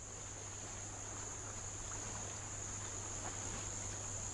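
Faint outdoor ambience of insects chirring in one steady high-pitched drone, over a low steady hum.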